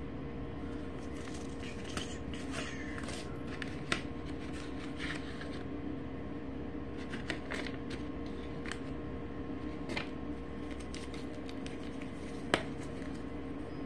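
Paper seed packets being handled and shuffled, with soft rustles and light clicks scattered throughout and a sharper tap near the end, over a steady low hum.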